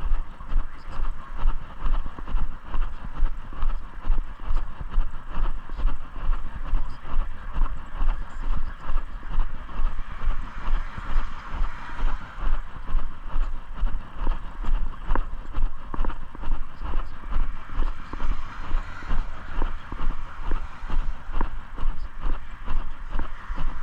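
Footsteps of a person walking at a steady pace, about two steps a second, over a low rumble on the microphone.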